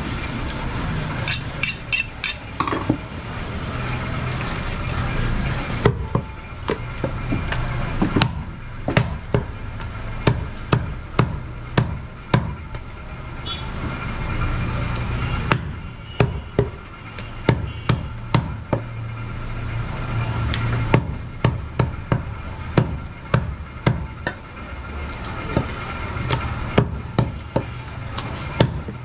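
Heavy butcher's cleaver chopping goat meat and bone on a round wooden chopping block: sharp, irregular chops that come in quick runs of about two a second.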